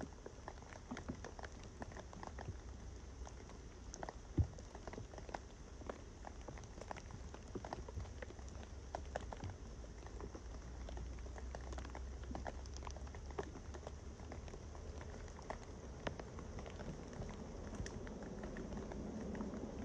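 Small kindling fire crackling, with scattered irregular light pops and ticks as it catches in a folding fire pit, over a low steady rumble. It grows slightly louder near the end.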